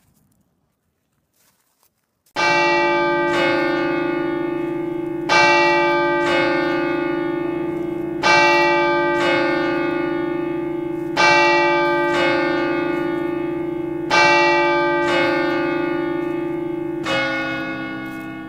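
A church bell tolling: strokes come in pairs about a second apart, the pairs roughly three seconds apart, each stroke ringing on with a long hum. It starts about two seconds in, after near silence.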